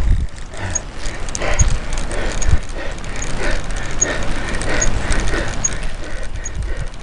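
Wind rumbling on a bicycle-mounted camera's microphone as the bike is ridden, with a soft sound and a faint high click repeating evenly a little more than once a second.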